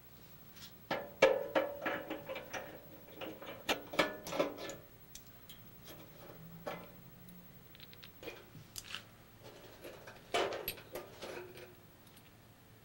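Irregular metal clinks, taps and rattles as a burner is taken apart on a Coleman propane stove's steel cooktop, with brief metallic ringing after the sharper knocks. The clinking is busiest in the first few seconds, eases off, and comes back in a short burst about ten seconds in.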